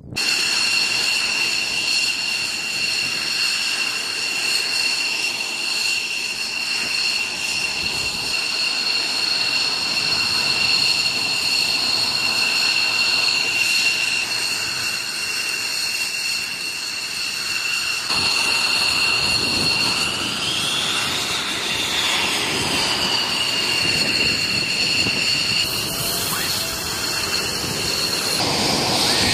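F-16 fighter's jet engine running on the ground with a steady high-pitched whine over a rushing noise. The whine's pitch rises and falls briefly twice in the second half.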